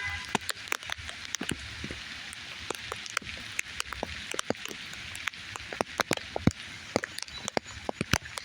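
Rain falling: a steady hiss with many separate, irregular drops hitting a surface close by.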